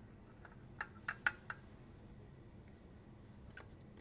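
Glass stirring rod ticking lightly against a glass beaker while stirring: four small clinks about a second in and one more near the end.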